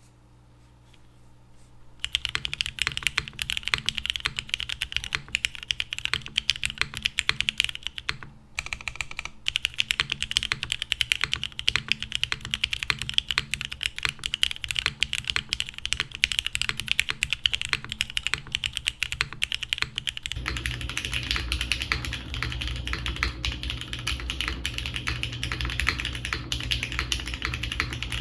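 Typing on a Geonworks Frog TKL mechanical keyboard with lubed Cherry MX Hyperglide Black linear switches, an aluminium plate and GMK keycaps. Fast, continuous keystrokes begin about two seconds in, with a short break about a third of the way through. Later the typing grows denser and deeper-sounding.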